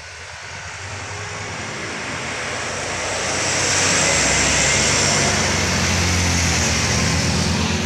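A light box truck's engine and tyres passing close by, growing louder to a peak about four seconds in and staying loud as it moves off along the road.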